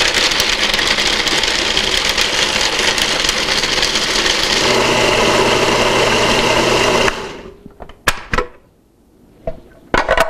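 Food processor grinding pecans and almonds into a crust, the nuts rattling against the blade and bowl while dates are dropped in through the feed tube; the sound deepens about halfway through as the mix thickens. The motor cuts off suddenly about seven seconds in, followed by a few sharp clicks as the lid is unlocked and lifted off.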